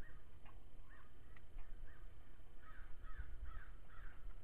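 A bird calling over and over in short, arched calls, quickening into a run of four about three seconds in, with a few light taps in between.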